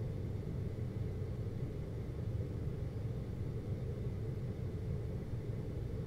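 GoldStar window air conditioner running with a steady low hum.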